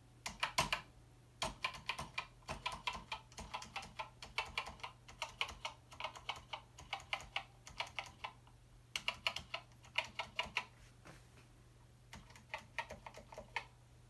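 Keys of a Commodore PET business keyboard being pressed one after another in quick runs of clicks, with short pauses between the runs, as each key is tried in turn to test it.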